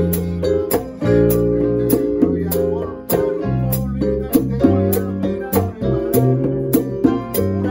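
Latin jazz band playing an instrumental tune, with vibraphone and congas, over a low bass line and a steady high percussion tick about twice a second.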